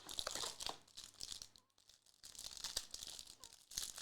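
Trading card pack wrappers crinkling and cards being handled: irregular rustling and crackling, with a brief lull a little under halfway through.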